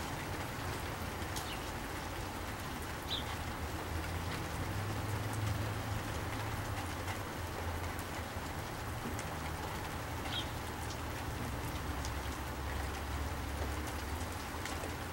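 Steady rain falling, with a low rumble underneath and two brief high chirps, about three seconds in and again about ten seconds in.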